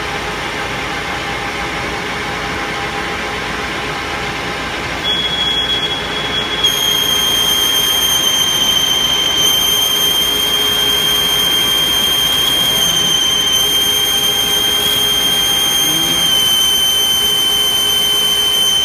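Metal lathe running steadily while the tool cuts a large aluminium workpiece. About five seconds in a steady high-pitched squeal sets in from the cut, and it grows louder a second or two later.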